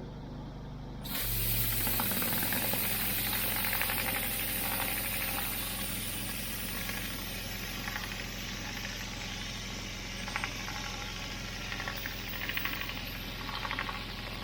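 A pressure washer's engine running steadily. About a second in, the high-pressure water comes on with a loud, steady hiss as the rotary surface cleaner sprays the block paving, with short louder bursts of spray noise every few seconds.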